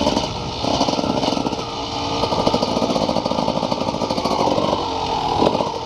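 Small motorcycle engine running with a rapid, rattly firing beat, holding roughly steady with small changes in speed.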